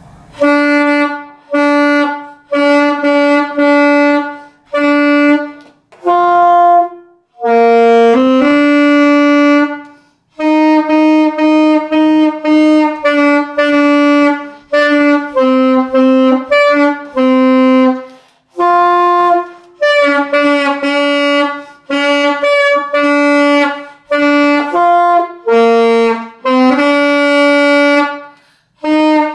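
Alto saxophone played solo: short phrases of held and repeated notes, mostly on one pitch with steps up and down, with brief breaks for breath between the phrases.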